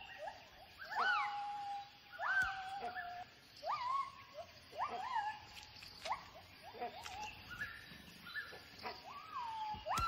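Gibbons calling: a series of whooping notes that each sweep sharply upward, some settling into a held steady hoot, repeated about once a second.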